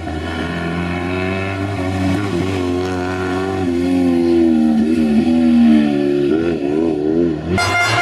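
Steyr-Puch 650T rally car's air-cooled flat-twin engine revving hard through the gears as it passes and pulls away, the pitch climbing and dropping with each shift. Near the end the sound cuts abruptly to a steadier engine note.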